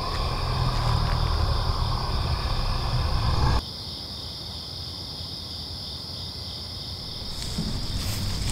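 Steady cricket chirring ambience under a loud low rumble that cuts off suddenly after about three and a half seconds, leaving the insects alone until the rumble returns faintly near the end.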